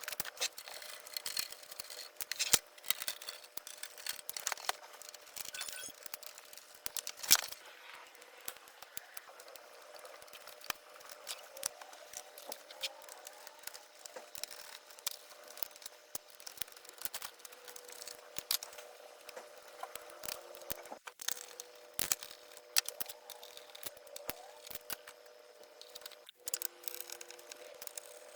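Scattered, irregular clicks and taps of small parts and tools being handled while a CD player is taken apart, over a faint steady hum.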